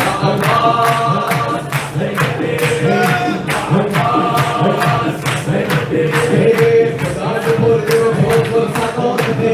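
A man singing a devotional chant into a microphone, holding long notes. Steady hand-claps keep the beat at about two a second.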